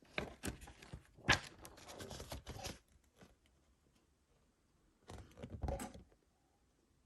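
Packaging being handled and opened by hand, rustling and scraping, with a sharp click about a second in. After a pause, another burst of rustling comes near the end.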